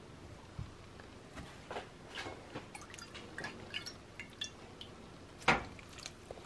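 Faint, scattered soft ticks and drips of food being handled: injera torn into a bowl and sunflower-seed liquid ladled over it, with one sharper clack near the end.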